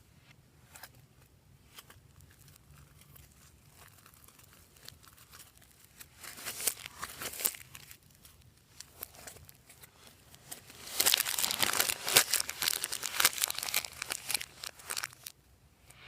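Slime being worked by hand, crackling and crinkling in two spells: a short one about six seconds in and a longer, louder one from about eleven seconds in.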